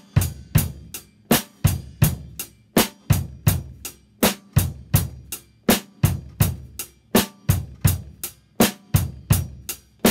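Drum kit played with sticks in a steady train-beat groove: an even run of snare strokes with accented hits, about three strong strokes a second and softer ones between, over a kick drum pattern.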